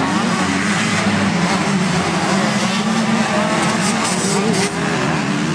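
Motocross bike engines running on the track, several at once, their pitch rising and falling as the riders work the throttle through the corners.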